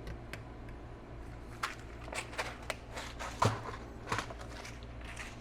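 Small plastic clicks, taps and rustles of hands handling a mini blade fuse and its plastic pack, with the sharpest click about three and a half seconds in, over a low steady hum.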